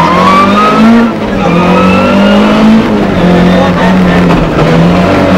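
Rally car engine heard from inside the cabin, accelerating hard through the gears. The pitch climbs, drops at a gear change about a second in, climbs again, drops at another change about three seconds in, then holds fairly steady.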